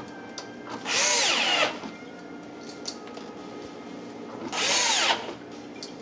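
Cordless electric screwdriver driving screws into the dishwasher's control board cover: two short bursts of motor whirring, one about a second in and another near five seconds, the pitch rising and falling during each run.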